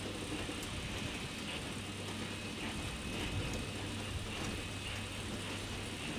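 Steady mechanical ambience: a low rumbling drone with a constant hum and faint scattered ticks.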